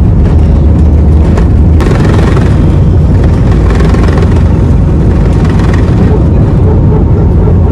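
Loud, steady rumble of jet engines and wheels on the runway heard inside an Airbus A320's cabin around takeoff. About two seconds in, a rushing hiss joins the rumble and stays.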